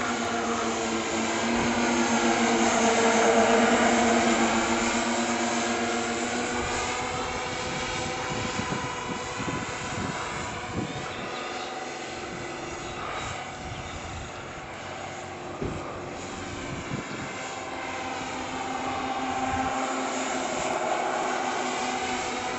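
Electric motors and propellers of a large scale RC Staaken R70 biplane bomber model droning in flight. The drone is loudest a few seconds in as the model passes close, with its pitch bending as it goes by. It fades in the middle, where wind thumps on the microphone, and grows louder again near the end as the model comes back around.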